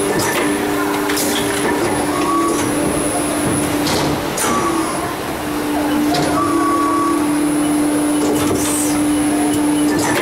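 Plastic injection moulding machine cycling a four-cavity lid mould: a steady machine hum, broken several times by short, sharp hisses and clicks as the mould opens and closes and compressed air blows the lids off the cores.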